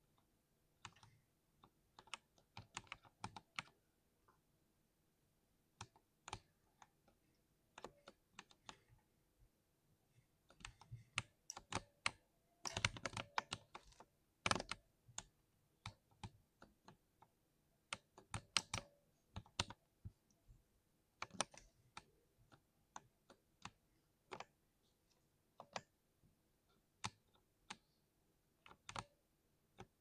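Thocky keystrokes on a 60% mechanical keyboard, typed in short irregular runs of a few keys with pauses between, and a dense stretch of fast typing around the middle.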